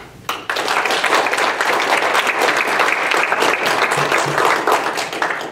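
Applause from a roomful of people, starting about half a second in and dying away near the end.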